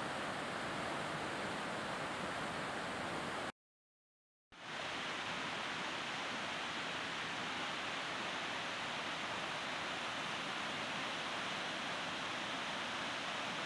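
Steady rush of water from a small waterfall and the rocky stream rapids below it, broken by about a second of silence a few seconds in.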